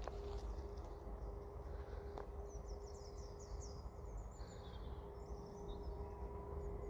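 Outdoor background of a low steady rumble with a faint steady hum, over which a small songbird sings: a quick run of high chirps about two and a half seconds in, then more high twittering around five seconds.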